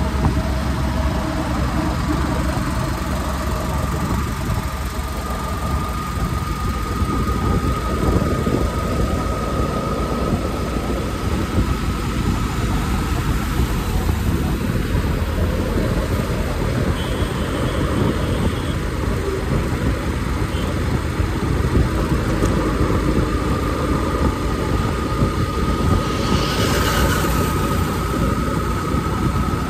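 A Yamaha motorcycle being ridden at about 40 km/h, its engine and road noise mixed with wind rushing over the microphone, steady throughout. A thin steady whine runs through much of it, and there is a brief hiss near the end.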